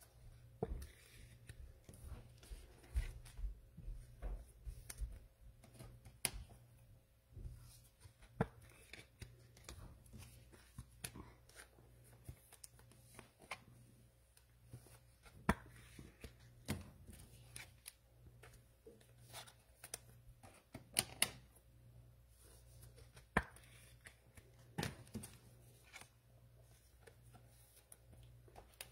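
Trading cards and their packs being handled on a table: scattered soft clicks, taps and rustles at an uneven pace, over a faint steady low hum.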